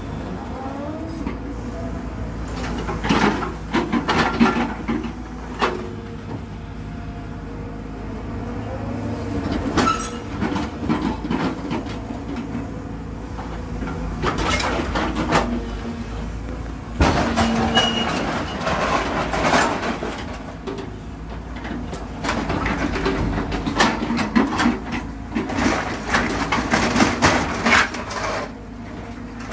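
A scrap-handling machine's engine and hydraulics running steadily while its grapple claw picks up and drops scrap metal. Repeated metallic clanks and crashes of sheet metal come in several bursts.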